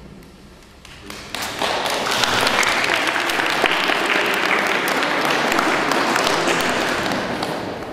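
A crowd of schoolchildren applauding, starting about a second in and fading near the end.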